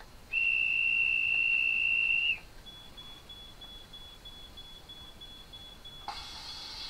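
Sound effects from the ESU LokSound V5 decoder in a Roco H0 ETA 515 railcar model, played through its small speaker. A single high, steady whistle tone sounds for about two seconds. A faint, fast beeping follows, and a hiss of air starts about six seconds in.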